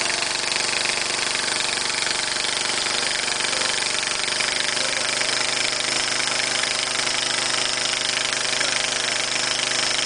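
Snapper riding mower's 14.5 HP Briggs & Stratton engine running steadily with an exhaust leak at a broken exhaust flange bolt.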